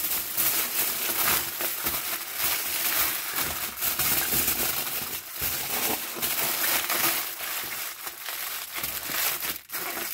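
Aluminium foil crinkling and crumpling as it is wrapped and pressed by hand around a parchment-paper parcel, an irregular crackle that goes on throughout.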